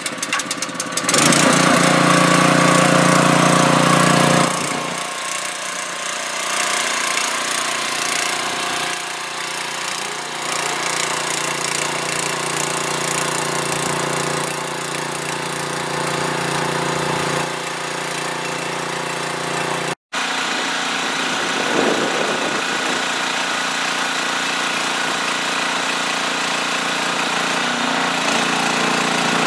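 Small single-cylinder petrol engine, a Chinese copy of a 5 hp Honda, pull-started and catching about a second in. It runs fast and loud for a few seconds, then settles to a steady lower speed while driving a small hydraulic pump that lifts the JCB's loader arms and backhoe. The sound drops out briefly about two-thirds of the way through.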